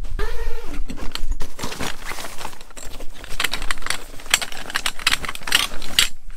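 Metal poles clicking and rattling against each other as a hand rummages in a nylon carry bag, with the bag's fabric rustling. The clicks come thick and fast, busiest in the second half.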